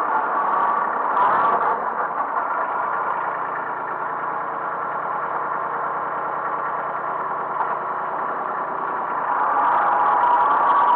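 Kubota B1820 compact tractor's three-cylinder diesel engine running steadily, a little quieter through the middle and louder again near the end.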